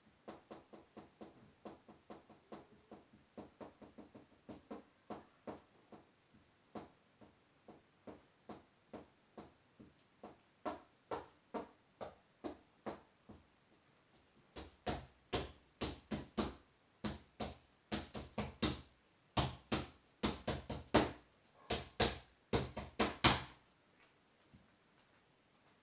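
A long run of sharp knocks, a few a second, fainter at first and much louder from a little past halfway, stopping a couple of seconds before the end.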